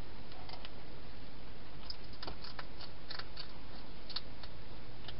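A wild hedgehog chewing food inside a plastic feeding station: irregular small crisp clicks and crunches, thickest in the middle, over a steady hiss.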